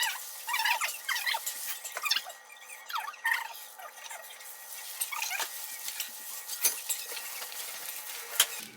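Food being mixed or stirred by hand: wet crackling with scattered clicks and short squeaks.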